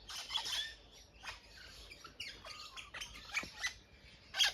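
Mixed birdsong: several birds chirping and calling over each other in quick short notes, with louder calls just after the start and again near the end.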